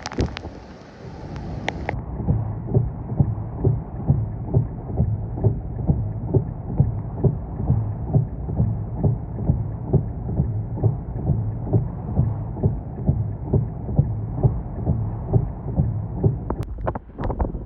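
Muffled, steady low thumping, a little under two beats a second, heard from inside a vehicle. It follows a brief rush of wind noise at the start, and a few sharp clicks come near the end.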